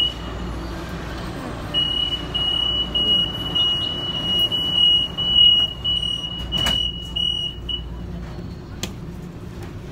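Train door warning buzzer sounding a high-pitched run of short beeps, about two a second for some six seconds, over the low rumble of the train standing at the platform. A couple of sharp clicks follow near the end.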